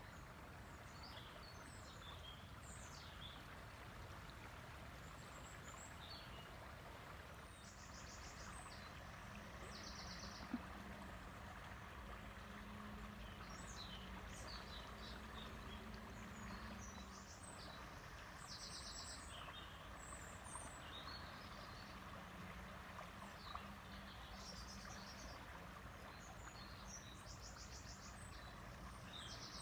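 River water flowing steadily, with small birds chirping and giving short buzzy trills on and off. A faint low drone joins through the middle, and there is a single sharp click about ten seconds in.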